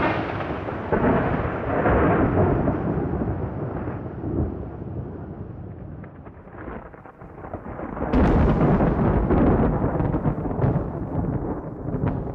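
Thunder: long rolling rumbles that slowly fade, then a sudden sharp crack about eight seconds in that rolls on into another rumble.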